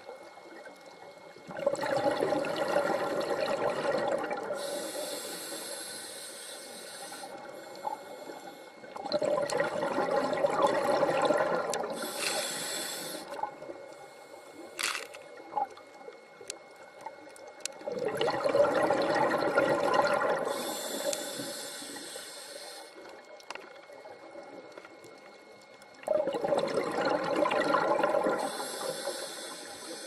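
Scuba diver breathing through a regulator underwater: a hiss on each inhale and a rush of exhaled bubbles, four breaths about eight seconds apart.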